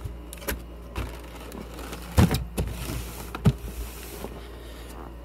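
A cardboard fireworks case being opened by hand: scattered knocks and clicks of the cardboard, the sharpest a little over two seconds in and about three and a half seconds in, with a scraping rustle for about a second between them.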